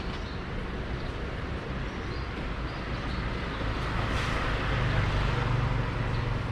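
Steady street traffic noise, a low rumble that grows a little louder in the second half as vehicles pass.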